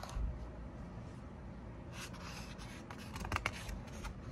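A picture-book page being turned: paper rustling, with a cluster of short crackles from about two seconds in.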